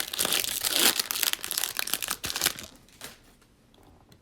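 Foil wrapper of a Topps Chrome trading-card pack being torn open and crumpled, a dense crinkling that dies away about two and a half seconds in.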